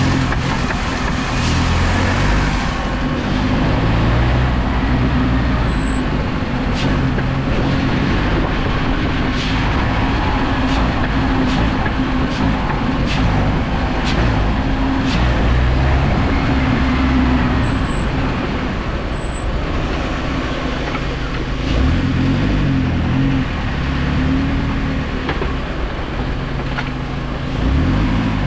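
2006 Jeep Wrangler TJ's 2.4-litre four-cylinder engine running, its pitch rising and falling as the throttle is opened and released, with several sharp knocks along the way. These knocks are the clunk on throttle release that the owner suspects comes from a worn engine or transmission mount.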